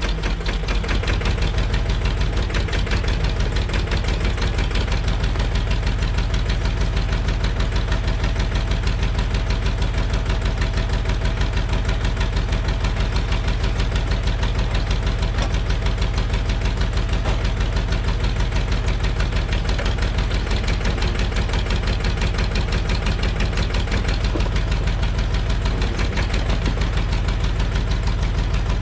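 Massey Ferguson backhoe's diesel engine idling steadily with an even clatter, left running so the newly replaced stabilizer hydraulic lines can be checked for leaks.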